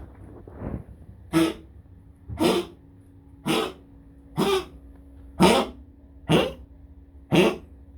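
A pet coughing over and over: seven harsh coughs about a second apart, after a fainter one near the start.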